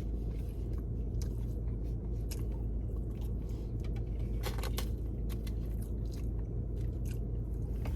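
A person chewing a mouthful of food close to the microphone, with scattered wet mouth clicks and smacks, over a steady low hum.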